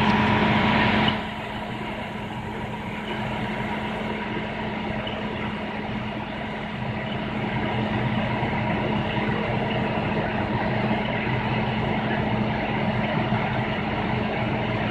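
Fire engine idling, a steady engine hum with constant tones. A louder hiss fills the first second.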